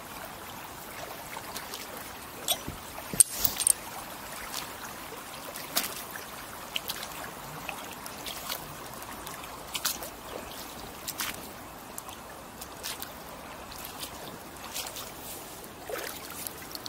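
Shallow river trickling steadily over pebbles, with irregular sharp clacks of stones shifting underfoot on wet shingle. The loudest cluster of clacks comes about three seconds in.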